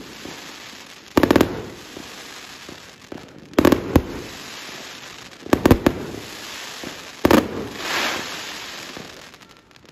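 Fan-shaped firework cake firing, with four volleys of sharp bangs about two seconds apart. Each volley is followed by a fading crackle, and the sound dies away near the end.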